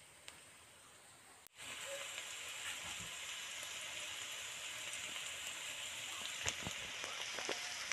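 Minced garlic sizzling in melted butter in a pan: faint at first, then a steady sizzle from about a second and a half in, with a few light clicks of a metal spatula against the pan near the end.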